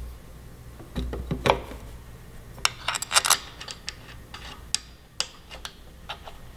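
Light metallic clicks and clinks of small parts and hand tools being handled while a motorcycle fuel cap base is fitted, with a quick cluster of clicks about three seconds in and single taps after.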